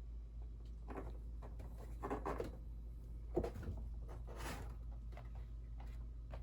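Scraping and rubbing sounds, with one sharp knock a little past the middle and a rustle after it, over a steady low hum. These fit a kitten scrabbling about in cardboard boxes.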